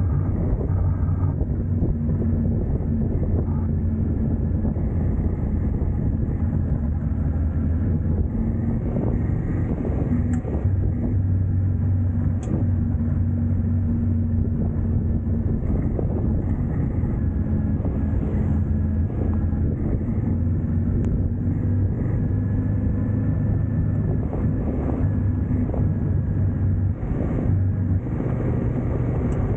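Dual-sport motorcycle engine running at a steady cruise on a gravel road, with tyre and wind noise under it. The engine note breaks briefly near the end, then carries on at a slightly different pitch.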